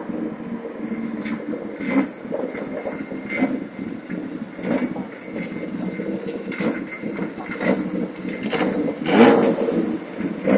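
Historic single-seater race car engines running at low speed as the cars roll along the pit lane. A steady drone carries short louder bursts every second or so, the strongest near the end.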